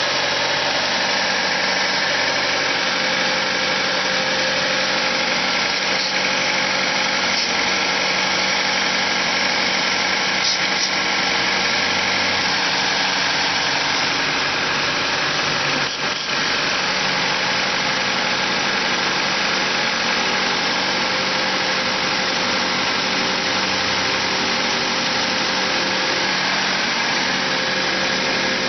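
Car engine idling steadily, with one brief dip in level about sixteen seconds in. The owner suspects a vacuum leak behind the engine's high, hard-to-settle idle.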